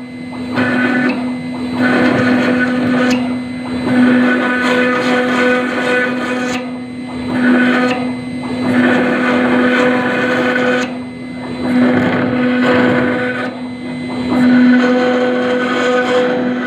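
CNC router spindle running at a steady high speed while the bit cuts into granite, its grinding noise swelling and easing every second or two.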